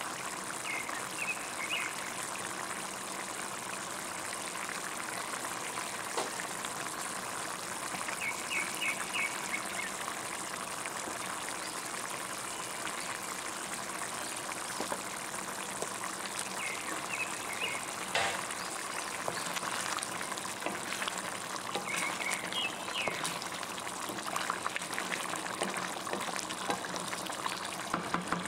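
Thick okra-and-beef stew simmering in a pan: a steady bubbling with many small pops and crackles as the sauce boils.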